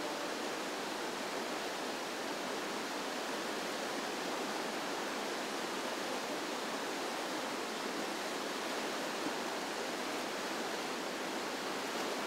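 Whitewater river rapids rushing: a steady, even hiss of churning water with no breaks.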